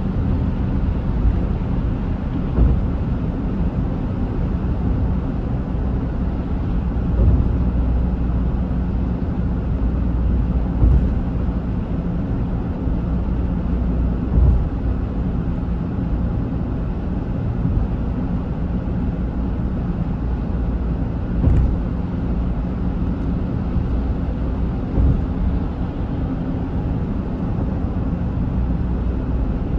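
Road and engine noise heard inside a moving car, a steady low rumble. A handful of short thumps stand out above it.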